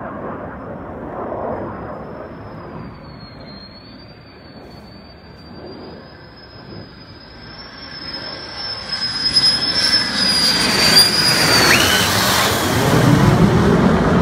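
F-16C Block 52 fighter jet flying low overhead. A thin, high turbine whine that rises slowly in pitch grows louder, then from about nine seconds in the jet's roar swells up, with a deep rumble building near the end as it passes.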